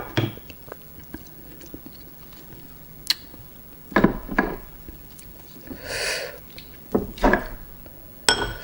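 Close-up eating sounds of raw oyster being chewed, with several sharp clicks scattered through and a longer noisy sound about six seconds in.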